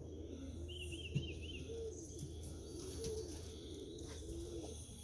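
Domestic pigeons cooing, low coos rising and falling over and over, with a small bird's brief high trill about a second in.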